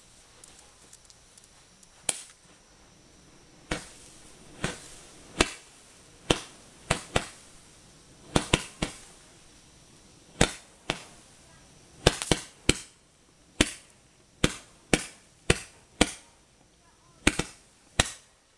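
A Roman candle firing a long string of sharp pops, one for each ball it shoots, irregularly spaced and sometimes two in quick succession. The pops start about two seconds in.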